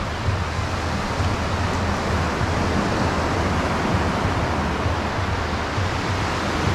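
Steady wash of ocean surf on a beach, with a low, unsteady rumble of wind on the microphone.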